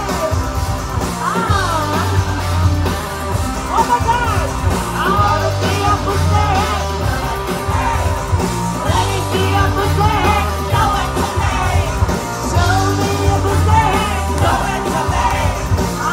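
Loud live rock band playing an electronic dance-rock song, with a heavy pulsing bass, electric guitar, and voices singing and yelling over it, heard from within the audience.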